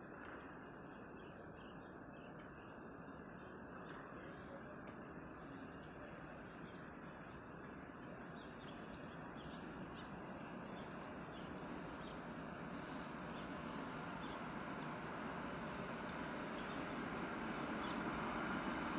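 Distant goods train approaching: a low rumble that grows slowly louder over the second half. Under it runs a steady high insect drone, and three short sharp bird chirps, the loudest sounds, come about seven to nine seconds in.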